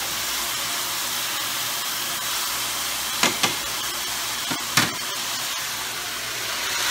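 Beef-and-vegetable stir fry sizzling in a hot pan, its soy-and-cornstarch sauce cooking down, a steady hiss. A few sharp clicks of utensils against the pan come about three seconds in and again near five seconds.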